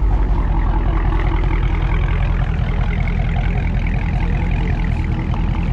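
A Dodge Charger's engine running at low revs as the car pulls slowly away, a steady deep exhaust rumble with no revving.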